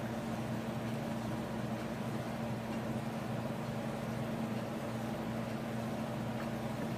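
A steady low hum with a light hiss behind it, even throughout with no distinct knocks or clicks.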